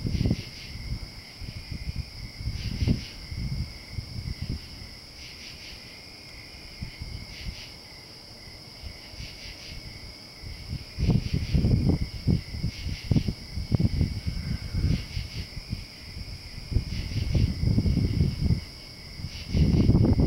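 Night insects, crickets, trilling steadily in high pulsing bands. Gusts of breeze buffet the microphone with a low rumble about eleven seconds in, again around seventeen seconds, and louder near the end.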